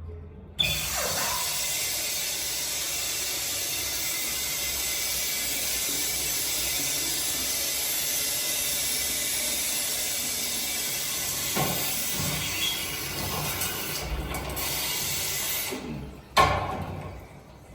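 A restroom fixture being flushed: a click, then a steady loud rush of water for about fifteen seconds, ending with a sharp clunk near the end.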